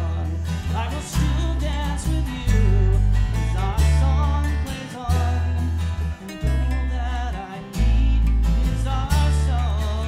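Live acoustic folk band playing a slow waltz: strummed acoustic guitar, mandolin and electric bass, the bass sounding a deep note about every second and a quarter, with a man singing over it.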